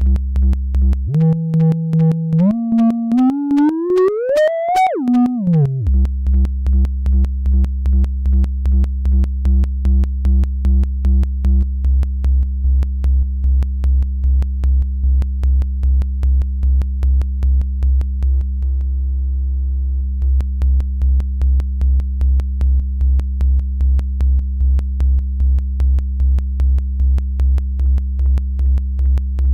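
Infernal Noise Machine desktop analog synthesizer playing a low bass tone that pulses in an even, rapid rhythm. About a second in, a higher tone steps up in pitch and glides upward, then falls back and gives way to the bass pulse again. Around two-thirds through, the pulsing briefly stops on a steady held tone.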